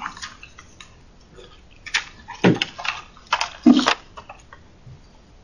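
Handling noise at a lectern microphone: a few knocks and rustles between about two and four seconds in, as papers are gathered up and the lectern is left.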